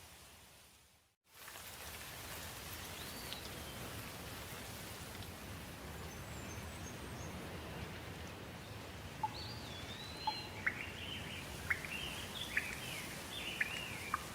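Steady rain, with the sound briefly cutting out and returning about a second in. A bird whistles faintly, then from about nine seconds in gives a run of sharp, quick chirps that stand out above the rain.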